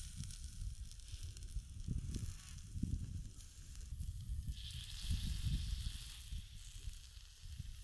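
Pork ribs sizzling on a grill over hot coals, the sizzle growing louder a little past halfway, over an uneven low rumble.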